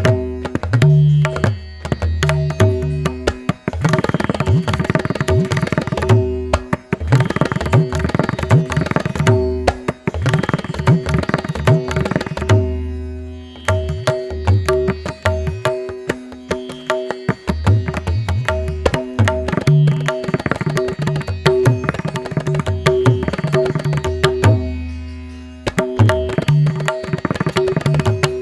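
Instrumental devotional music: rapid tabla strokes over a steady sustained drone, with recurring deep bass strokes. It thins out briefly about twelve seconds in.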